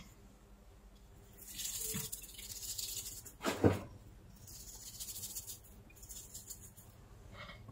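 A brush scrubbing small metal drill-gearbox parts in a cup of cleaning liquid, in spells of swishing hiss, with one loud knock about three and a half seconds in.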